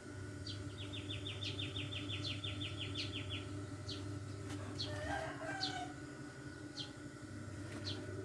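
Birds calling: short high chirps about once a second and a rapid high trill lasting about three seconds, with a brief rooster crow about five seconds in, over a steady low hum.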